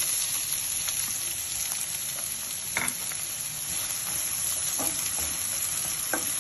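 Chopped onions and green chillies sizzling in hot oil in a pan: a steady frying hiss, with a few light taps and scrapes of a wooden spatula stirring them.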